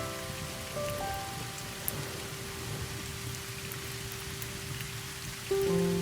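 Fire crackling and hissing, with a few sharp pops, under soft sustained music chords. One chord fades early on and a new chord comes in near the end.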